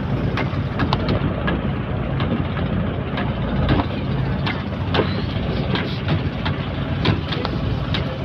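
Fishing boat's engine running steadily, with frequent irregular sharp clicks and knocks over it.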